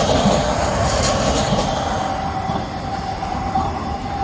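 Škoda 15T ForCity low-floor trams running past close by on street track: a steady rolling rumble with a steady high tone through it, and a few clicks about a second in.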